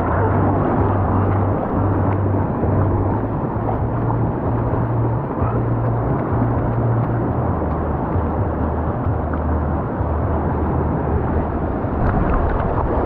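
Water rushing and churning down a raft-ride flume, splashing around and under an inflatable raft, over a steady low rumble.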